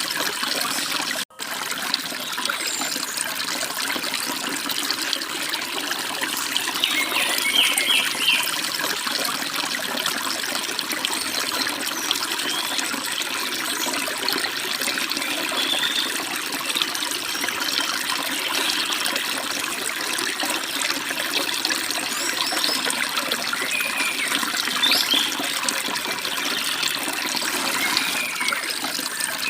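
Stream water babbling and rushing steadily over rocks, with scattered short bird chirps. About a second in, the sound cuts out for an instant.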